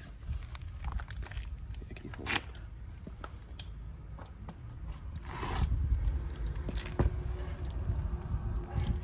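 Hands working a wire into a small metal terminal: scattered light clicks and rustles, with a longer scraping rustle about five and a half seconds in, over a low rumble.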